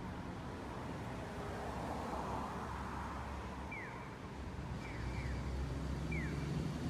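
Steady low rumble of road traffic, swelling as a vehicle passes about two seconds in, with a few short, high, falling chirps in the second half.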